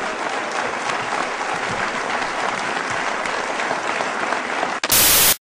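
Audience applauding steadily. Near the end a brief, very loud burst of noise, then the sound cuts off abruptly.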